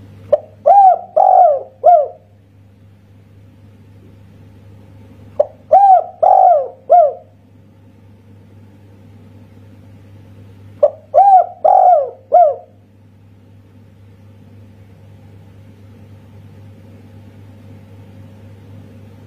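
Spotted dove (tekukur) cooing its 'kuk satu' song three times, about every five and a half seconds. Each phrase is a brief opening note followed by three quick, rounded coos.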